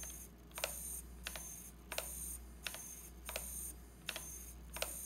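KST X08 v5.0 micro servo sweeping its arm back and forth on 3.8 volts, near the bottom of its rated range. Each stroke is a click and a short high-pitched motor whine, about seven strokes at an even pace of one every 0.7 seconds.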